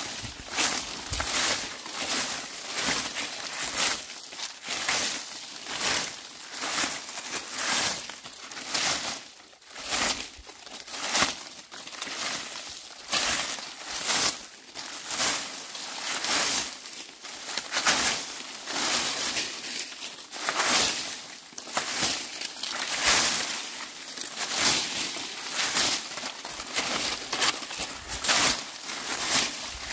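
Dry leaves being swept with a broom: repeated scratchy rustling strokes, about one a second in a steady rhythm.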